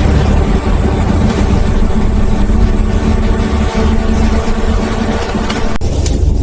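A steady, loud low mechanical rumble with a faint hum, like an engine running, that breaks off abruptly near the end.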